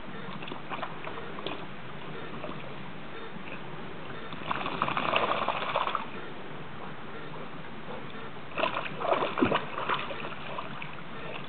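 A dog wading through shallow water, splashing in two spells: a longer one about halfway through and a choppier one near the end.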